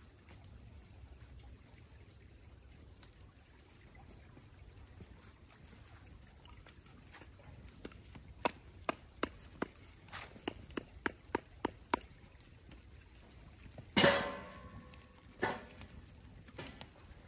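About a dozen sharp knocks, a few a second, then a loud strike that rings for about a second, followed by a lighter knock.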